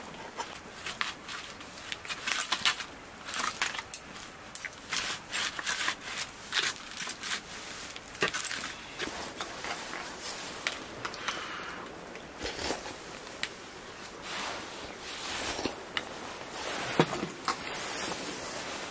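Irregular clicks, scrapes and rustles of objects being handled at close range.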